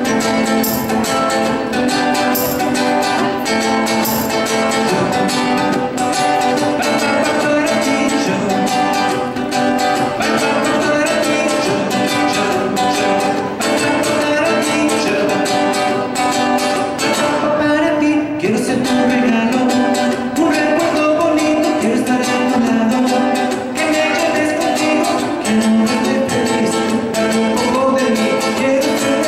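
Live solo performance of a song: a small acoustic guitar played without a break, with a man singing along into a microphone.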